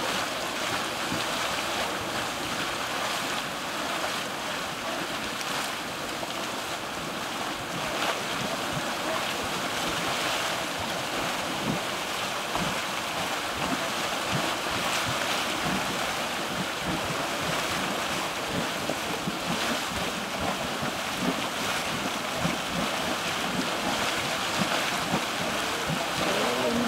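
Steam venting from Yellowstone's Mud Volcano crater: a steady rushing hiss, with irregular low plops and thumps from the churning mud pool.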